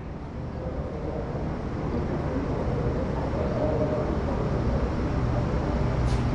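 Electric light-rail train running slowly into the station, its rumble and hum growing steadily louder as it approaches, with a faint whine over it. A brief high hiss comes near the end.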